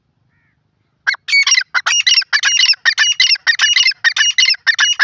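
Grey francolin calling: a loud, rapid run of high-pitched calls, about five a second, starting about a second in.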